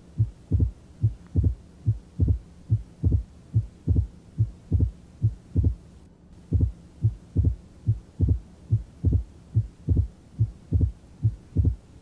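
Simulated heart sounds from a heart-sound simulator: a steady rhythm of low thuds, with the second heart sound followed 75 milliseconds later by a mitral opening snap, the pattern of rheumatic mitral stenosis. There is a short break about halfway through, and a faint steady hum underneath.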